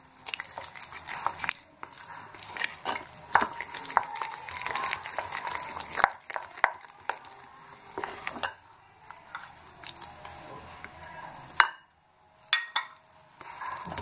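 Spatula stirring thick semolina-and-curd idli batter in a glass bowl, with irregular scrapes and taps against the glass. There is one sharp knock near the end.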